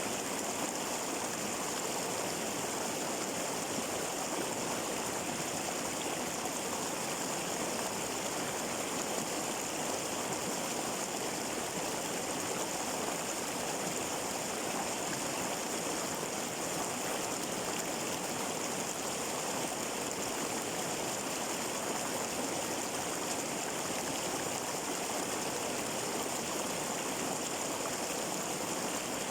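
Water flowing in a stream, making a steady, even noise that neither swells nor breaks.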